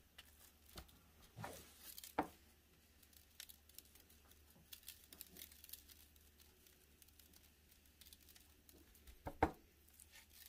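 Faint handling noises from hands patting seasoning onto raw pork spare ribs and shifting the racks on a metal sheet pan: scattered soft taps and clicks, the clearest about two seconds in and again near the end.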